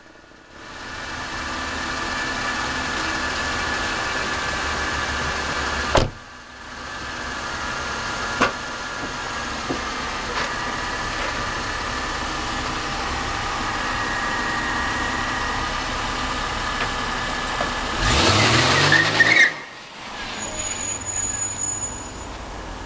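Squeal from the front wheel of a 2006 Mercedes-Benz E350: a steady high-pitched squeal in several tones, heard over the engine running. There is a sharp knock about six seconds in. Near the end comes a louder burst with a rising engine note.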